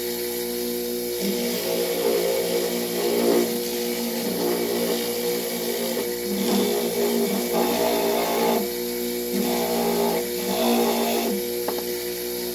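Motor-driven leather buffing wheel running steadily with a humming tone, with rougher, louder stretches several times as something is pressed against the spinning wheel.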